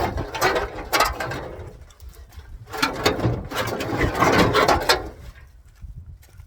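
Ratchet wrench clicking rapidly as it works a bolt, in two spells of a couple of seconds each.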